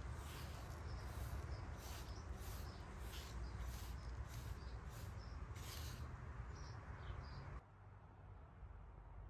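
Small birds chirping in short repeated calls over a steady low background rumble. The sound drops away abruptly about seven and a half seconds in.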